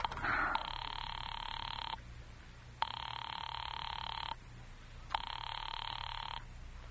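Telephone busy signal: a buzzing tone that sounds three times, each about a second and a half long with short gaps, meaning the dialed line is engaged.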